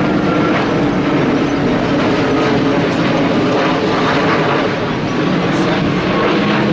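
Airbus A350 XWB's twin Rolls-Royce Trent XWB turbofan engines running loud and steady as the airliner passes overhead, a dense jet roar with faint steady tones in it.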